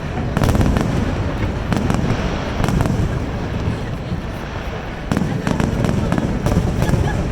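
Fireworks finale barrage: deep shell booms going off about once a second, overlapping with dense crackling pops, without a break.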